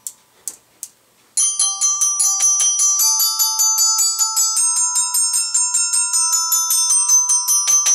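Glockenspiel played with a mallet in a fast tremolo roll, the same bars struck rapidly over and over, moving to new notes every second or two. A few light taps come first, and the rolling starts about a second and a half in.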